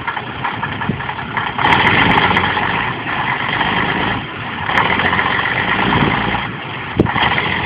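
Praga V3S army truck's air-cooled six-cylinder diesel engine running under load. Its sound swells and eases three times.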